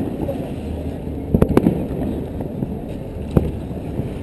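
Fireworks going off: a quick cluster of sharp bangs about a second and a half in and a single bang past the three-second mark, over a steady low rumble.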